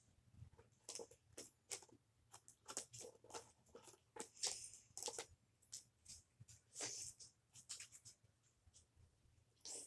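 Faint handling of trading cards: irregular light scrapes, rustles and clicks as cards are shuffled and picked up, with a couple of longer scrapes near the middle.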